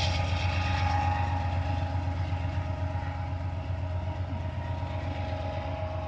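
Diesel locomotive at the rear of a loaded freight train moving away. It makes a steady low engine rumble that slowly fades, with a few faint steady high tones over it.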